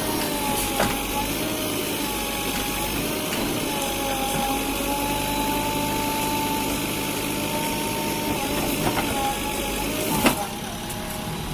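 Diesel engine of heavy earthmoving machinery running steadily, with a thin wavering whine over it. A sharp knock comes about ten seconds in.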